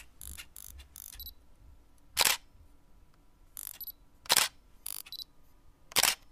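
A series of short, sharp clicks. Three louder ones come about two seconds apart, with fainter, higher-pitched clicks between them.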